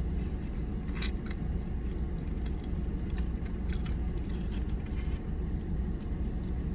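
Steady low rumble with a few faint, scattered clicks and crunches from chewing crispy fried lemon pepper chicken wings.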